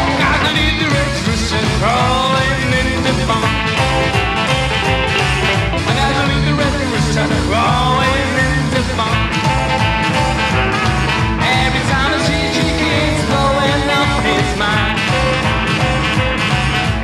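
Rockabilly band music in an instrumental stretch, with a steady beat from double bass and drums under pitched lead lines.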